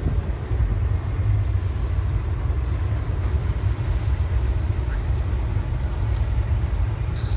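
Double-stack intermodal freight train rolling past, a steady low rumble from its wheels on the rails, with wind buffeting the microphone.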